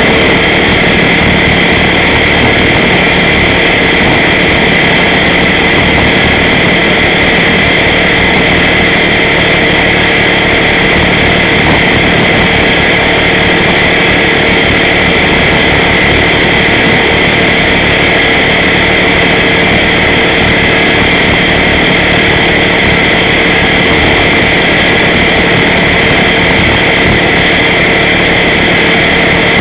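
T-Rex 500 electric RC helicopter heard from its onboard camera: the motor, drivetrain and rotor run with a steady high whine over a rough buzzing drone, unchanging in pitch and loudness.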